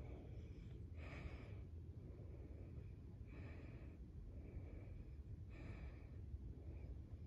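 Faint, soft breathing close to the microphone, a breath every second or so, over a low steady room hum.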